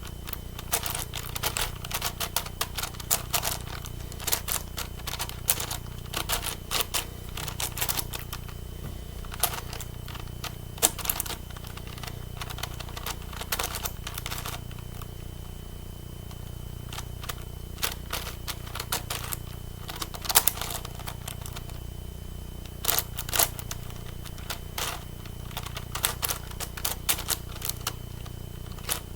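Plastic clicking of a 9x9 Rubik's cube's layers being turned by hand, in quick irregular runs of clicks with a pause of a few seconds about halfway through.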